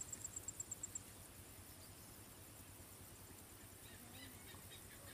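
A fast, even, high-pitched ticking, about nine ticks a second, that stops about a second in. After it there is only a faint outdoor background, with a few faint high chirps near the end.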